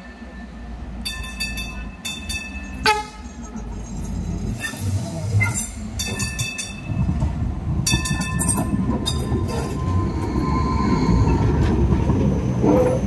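Hong Kong Light Rail train coming through a junction of points, sounding its warning gong in several bursts, with one sharp clang about three seconds in. The rumble of its wheels on the rails grows louder from about halfway through as it passes close by.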